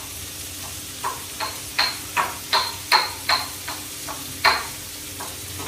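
Irregular light clinks and knocks of a cooking utensil against a metal pan, about two a second, each ringing briefly, over a low steady kitchen background.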